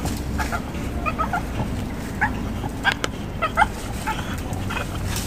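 French Bulldog whining and whimpering in a series of short, high-pitched whines, a few louder ones near the middle.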